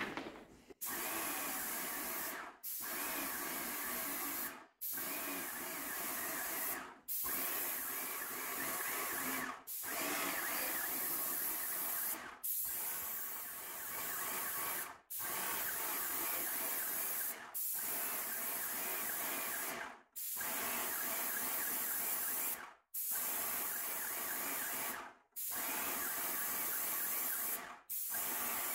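Paint sprayer spraying paint onto a wall: a steady hiss of spray and pump that breaks off sharply about every two and a half seconds, then starts again at once.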